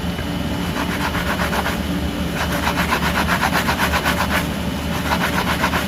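A motor or engine running steadily, with a fast, even clatter over a low hum.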